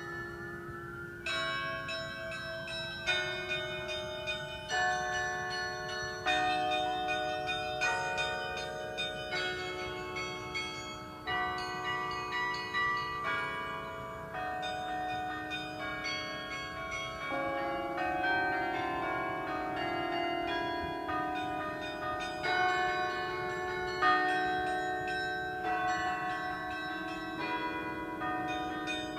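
Carillon bells ringing out a tune from a bell tower: a steady run of struck notes, often several bells sounding together as chords, each ringing on and overlapping the next.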